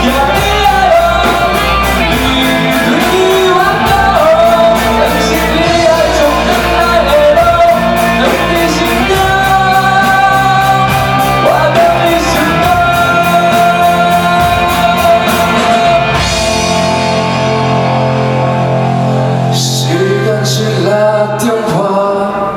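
Live rock band playing an instrumental break: a lead electric guitar solo with bending notes over drums and bass. About sixteen seconds in the drums drop out, leaving a held bass note under the guitar, with a couple of cymbal hits near the end.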